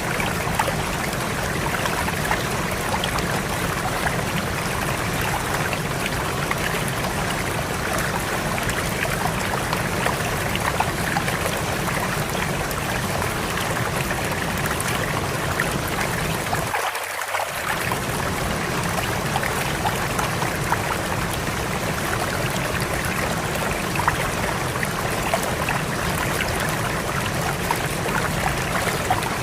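A fast-flowing river rushing steadily. The deep low part of the rush drops out for about a second, a little over halfway through.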